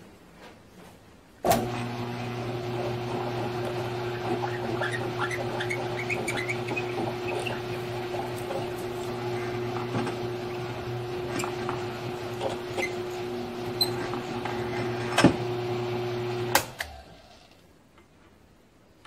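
Grizzly G1007 mill-drill switched on with a click about a second and a half in, its motor running with a steady hum while a twist drill bores into a 6061 aluminum part. A sharp click comes shortly before the machine is switched off near the end and winds down.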